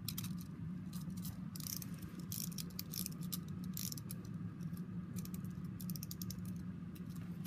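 Clockwork mechanism of a wind-up penguin toy, its spring-driven gears running with a steady low whir and many irregular ratcheting clicks and rattles.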